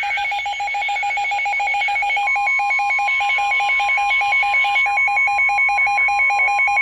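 Emergency Alert System alert tones coming over a radio broadcast: a rapid, even beeping that alternates between a lower and a higher pitch, joined about two seconds in by a steady tone, the attention signal that opens a new alert.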